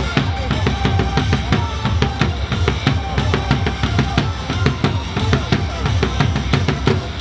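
Upbeat cheer music driven by a fast, steady drum kit beat with a heavy bass drum.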